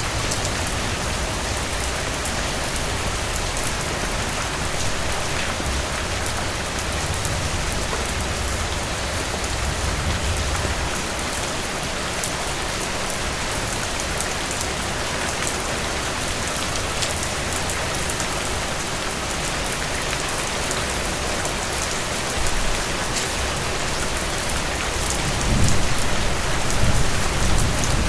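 Steady rain falling on a surface, a dense even hiss with scattered drop patter. Low rumbles of thunder swell up near the end.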